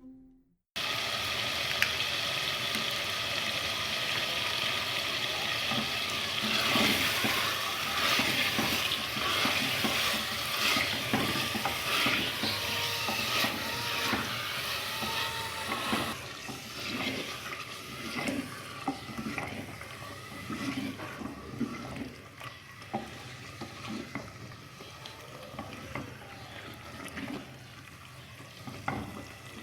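Chicken and potato curry sizzling in a pot while a spoon stirs it, scraping and clicking against the pot. The sizzle is loudest in the first half and settles lower for the second half.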